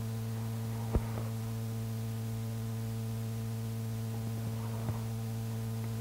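Steady mains hum with faint tape hiss on an old reel-to-reel tape recording during a blank stretch between recorded segments. A sharp click comes about a second in, and a fainter one near the end.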